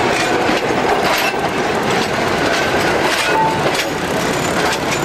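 A Cairo metre-gauge tram rolling past close by: a steady rumbling noise of its running gear, with scattered clicks and knocks from the wheels on the rails.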